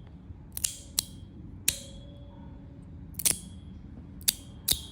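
Fidget slider snapped open and shut, about six sharp clicks, several followed by a short ringing tuning tone.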